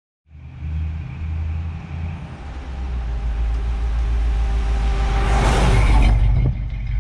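Vintage pickup truck's engine running as it rolls toward a camera at ground level and passes over it. The engine sound builds to its loudest about five and a half seconds in, then drops away suddenly.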